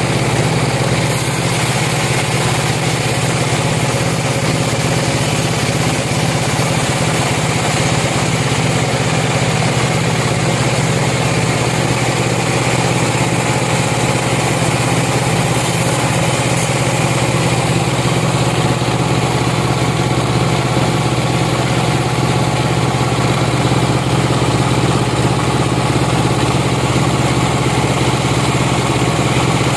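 Sawmill machinery running steadily: a motor's even drone with a dense mechanical noise above it, unchanging throughout.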